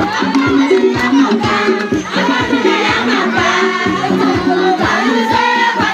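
Music with several voices singing together over a steady drum beat.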